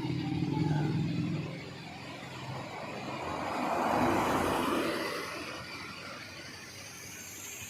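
Kawasaki Ninja 250 motorcycle with an Akrapovic exhaust running, its engine note fading away after about a second and a half. Road noise then rises and falls around the middle.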